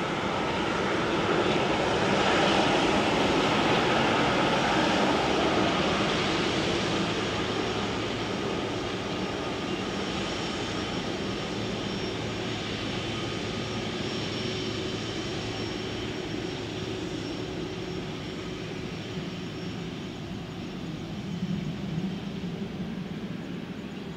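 Boeing 777-300ER's GE90-115B turbofan engines running at taxi idle with a steady whine as the airliner rolls slowly past. The sound is loudest a few seconds in and then fades gradually.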